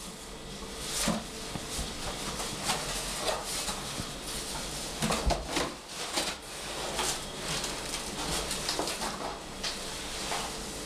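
Cardboard box rustling and scraping against a tiled floor, with scattered knocks, as a person wearing the box crawls and rolls over onto the floor. The knocks are loudest about five seconds in.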